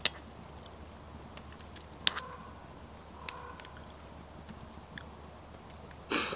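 Metal fork clinking against a ceramic plate while twirling noodles: a few sharp clinks, two of them leaving a brief ringing tone. A short, louder noisy burst comes near the end.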